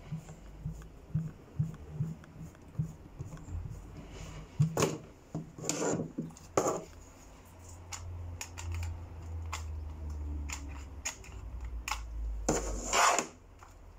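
Handling noise from working on a plastic toy gun: a run of soft, regular ticks while a screwdriver turns, then sharp clicks and knocks as parts are fitted, with a louder clatter near the end.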